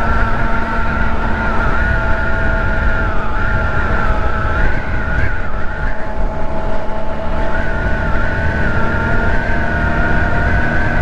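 Ice Bear Hawkeye 150cc scooter's GY6 single-cylinder four-stroke engine running at a steady riding speed, with a steady whine that wavers slightly in pitch, over a low wind rumble on the microphone.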